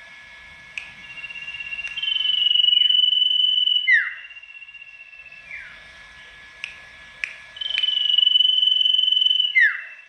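A sirtu songbird singing two loud whistled phrases. Each is a long, high, clear note, held and drifting slightly lower, ending in a quick downward-sweeping note, with a few short sharp notes before it.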